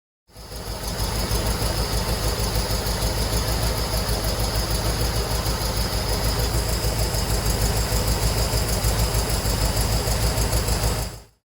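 Small-block Chevy 350 V8 on Holley Atomic EFI throttle-body injection idling at a steady, even pulse, with a steady high-pitched whine over it. The engine has been sputtering and losing power, and the owner suspects a vacuum leak. The sound fades in and stops abruptly near the end.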